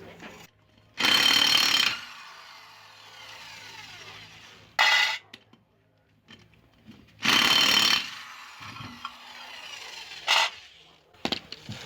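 Handheld power tool run in four short bursts: two last about a second and two are brief. After the first burst comes a falling, winding-down hiss.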